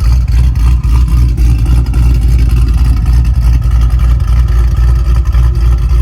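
Chevy SS's 6.2-litre LS3 V8, fitted with a Livernois Stage 2C camshaft, idling loud and steady with a choppy, pulsing lope from the big cam. The lope makes the car shake.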